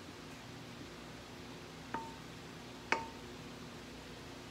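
Two light metallic clinks about a second apart, each with a brief ringing tone, as batter is scraped out of a stainless steel mixing bowl into metal loaf pans with a spatula. A steady low hum underneath.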